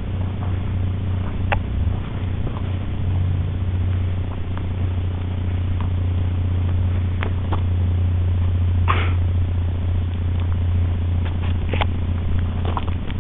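Honda XR50 fitted with a 110 cc stroker kit, its single-cylinder four-stroke engine idling steadily, with a few short clicks over it.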